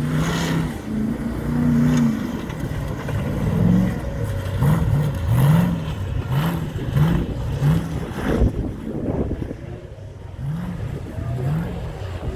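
Off-road racing buggy's engine revving up and dropping back in a string of short throttle bursts, about one a second, as it crawls over rocks.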